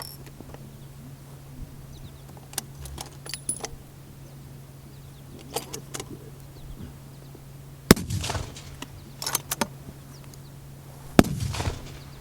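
Two rifle shots about three seconds apart, each with a rolling echo after it, preceded by lighter metallic clicks and rattles.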